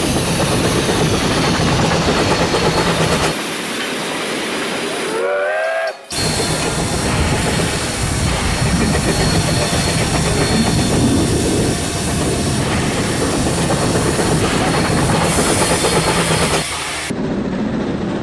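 Steam locomotive sound: a steady hiss with wheel clatter, and a short whistle that rises in pitch about five seconds in. The sound changes abruptly several times, as if clips were spliced together.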